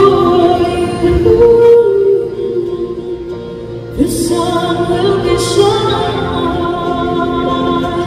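Live band music: a woman singing a slow ballad in long held notes over keyboard, with bass and acoustic guitar. The singing drops out briefly a little before the middle and comes back with a new phrase halfway through.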